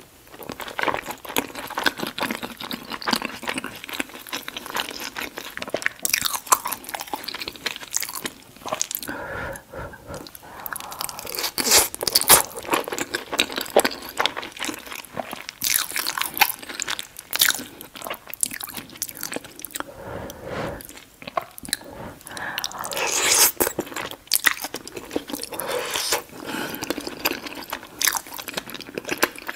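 Close-miked chewing of chili cheese fries loaded with chili, beans and melted cheese: irregular mouth clicks and smacks as forkfuls are bitten and chewed.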